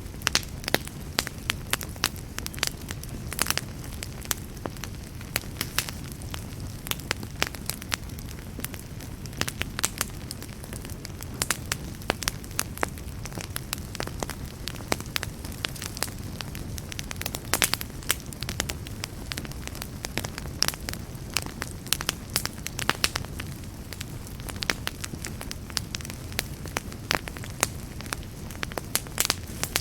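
Wood campfire burning: a steady low rumble of flame under frequent, irregular sharp crackles and pops.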